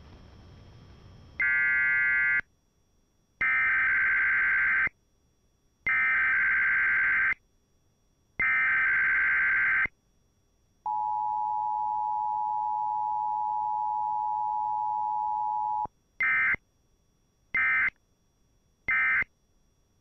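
Emergency Alert System activation tones. A one-second electronic burst is followed by three warbling SAME digital header bursts. Then comes the steady two-tone attention signal for about five seconds, and three short end-of-message data bursts.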